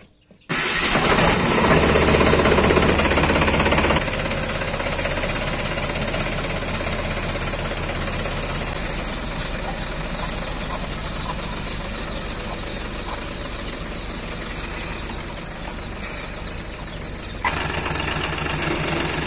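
Sonalika DI-42 RX tractor's diesel engine started with the key, catching almost at once about half a second in, then running steadily at idle. The level steps down sharply at about 4 s and jumps up again near the end.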